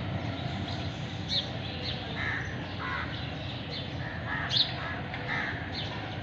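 Crows cawing: short calls scattered through, over a steady low background noise, with the sharpest and loudest call about four and a half seconds in.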